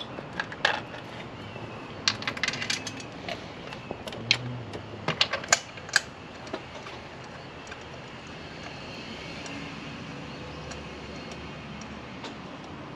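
Irregular sharp metallic clicks and clinks of spark plugs and hand tools being handled, bunched in the first six seconds, then only a faint steady hum.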